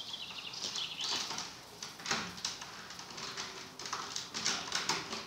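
Masking tape being pulled off the roll in short rasping strips and wound around willow rods, with irregular light clicks and knocks from the rods being handled.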